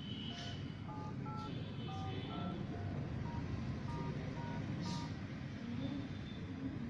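Smartphone dialer keypad tones (DTMF), one short two-note beep per key as a service code is tapped in, about a dozen over four seconds, over a steady low background rumble.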